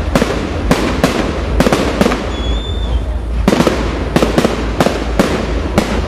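Fireworks display: a rapid, irregular run of sharp bangs from aerial shells bursting, often two or three a second. There is a lull of about a second and a half midway, when a brief high whistle sounds.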